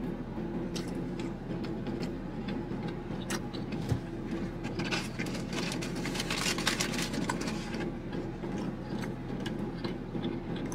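Steady hum of a car idling, heard from inside the cabin, with light clicks and the crinkle of a cardboard takeout box being rummaged about halfway through.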